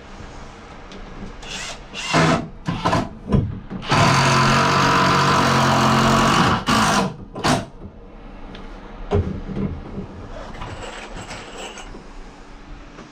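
Power drill running in a few short bursts, then steadily for about two and a half seconds, then two more short bursts.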